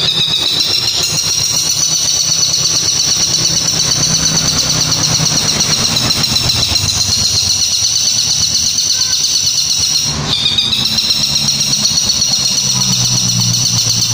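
Caged long-tailed shrike (cendet) giving one long, shrill, fast-fluttering call that breaks off briefly about ten seconds in and then starts again. The uploader likens the call to a kuntilanak shriek or a tengkek buto. A low hum runs underneath.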